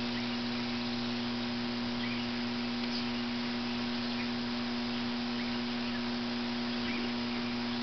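Steady electrical hum at a fixed low pitch, with a faint hiss under it.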